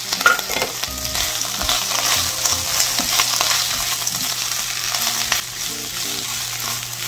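Pork belly, cabbage, carrot, onion and konjac rice-cake pieces sizzling in hot oil in a frying pan, with a steady crackle while a silicone spatula stirs and tosses them, scraping the pan.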